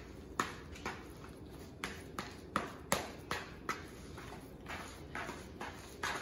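A spoon stirring mashed baked potato with butter and sour cream in a plastic mixing bowl, knocking and scraping against the bowl in irregular strokes about two a second.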